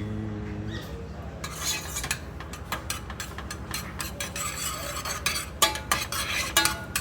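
A utensil stirring tomato soup in a pot, scraping and clinking against the pot's sides and bottom in quick irregular strokes, with a few louder knocks near the end.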